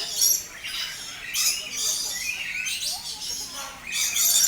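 A crowd of birds chirping and squawking over one another in a dense, high-pitched chatter, with the loudest bursts about a second and a half in and near the end. The birds are squabbling over food.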